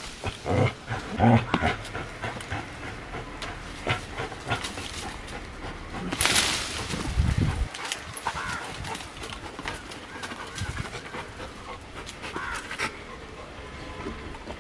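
Rottweiler panting hard from the exertion of a rope-tugging workout, with short scuffing sounds and a louder noisy burst about six seconds in.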